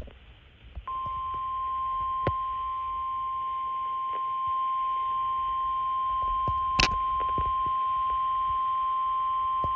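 NOAA Weather Radio 1050 Hz warning alarm tone from a Midland weather alert radio's speaker, announcing a severe thunderstorm warning. It is one steady high tone that starts about a second in and holds for about nine seconds. A few sharp clicks sound over it, the loudest about two-thirds of the way through.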